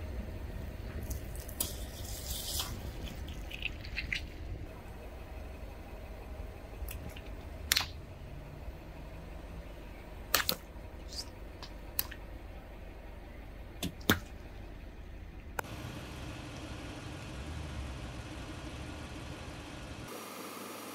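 A low steady rumble with a handful of sharp cracks and snaps, the loudest about 8, 10 and 14 seconds in: objects cracking as a car's tyre rolls over and crushes them.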